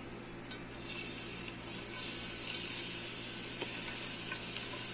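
Chopped garlic dropped into hot pork lard, sizzling as it starts to fry. The sizzle builds over the first two seconds, then holds steady with small crackles.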